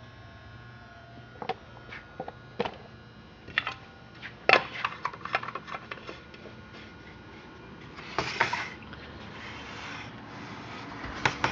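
Handling noise: scattered light clicks and knocks, the sharpest about four and a half seconds in, with a brief rustling hiss near eight seconds and a faint steady low hum underneath.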